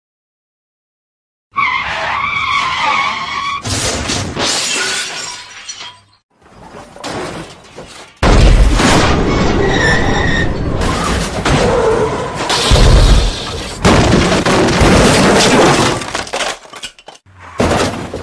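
Car crash sound effect: tyres screech about a second and a half in, then a crash with metal crunching and glass shattering. A second, louder impact about 8 s in is followed by more crashing and breaking glass.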